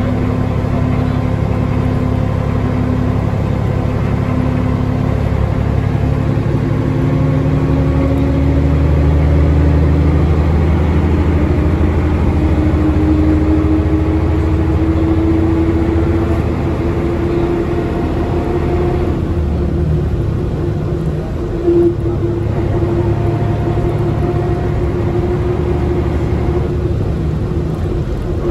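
Inside a 1984 Karosa LC736.00 coach under way: the Liaz ML diesel's steady drone, with a whine that rises slowly in pitch as the coach gathers speed and then holds. One short loud knock comes about three-quarters of the way through.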